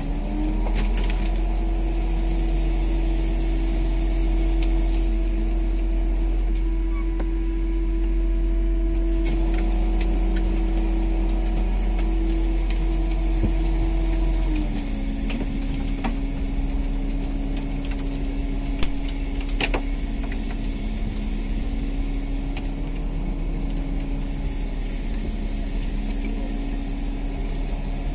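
Fishing boat's engine running steadily with a low hum. Its pitch steps up slightly at the start and drops a little about halfway through. There are a couple of sharp knocks later on.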